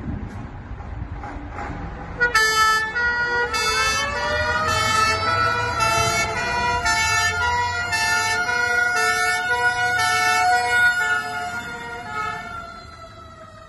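Vintage Dodge fire appliance turning out on two-tone horns, sounding hi-lo from about two seconds in, over the low rumble of its engine. A second siren tone rises a second later and holds beneath the horns; the two-tone stops near the end and that tone begins to fall.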